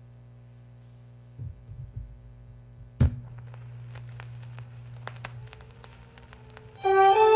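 Steady hum from a 300B tube preamp's moving-magnet phono stage turned up to maximum output, heard through a loudspeaker. A few low thumps are followed about three seconds in by a sharp thump as the stylus lands on the record on a Sony PS-3300 turntable. Scattered crackle and pops come from the lead-in groove, and near the end the record's music starts, led by strings.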